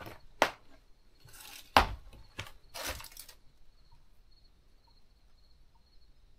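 Footsteps on the loose boards and debris of an old wooden house's floor: a few sharp cracks and short crunches over the first three seconds or so, the loudest about two seconds in, then quiet.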